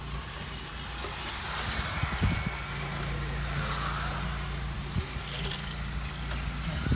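Electric RC touring cars' motors giving a high whine that rises and falls several times as the cars accelerate and brake around the track. A steady low rumble runs underneath.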